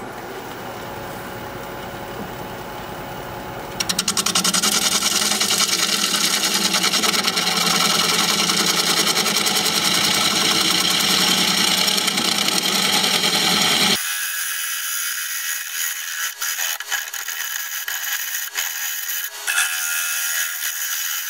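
Wood lathe spinning a live oak bowl while a bowl gouge cuts the inside, a steady scraping hiss of wood being cut. The wood is full of dirt and soft spots that cut like mush and keep dulling the gouge. The cut gets much louder about four seconds in and turns thinner and scratchier, with a few clicks, later on.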